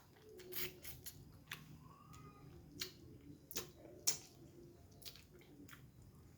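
Eating sounds close to the microphone: irregular small clicks and smacks of lips, teeth and bones while eating a cooked snapper head.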